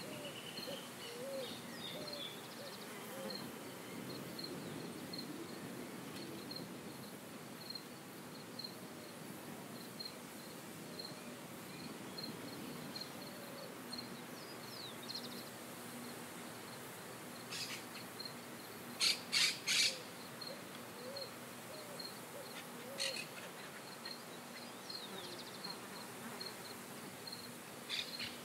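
Open-country ambience with birds and insects: a regular high chirp repeats throughout, short low calls come in the first half, and a faint steady low hum runs through the middle. About two-thirds of the way in, three loud, sharp bird calls come in quick succession.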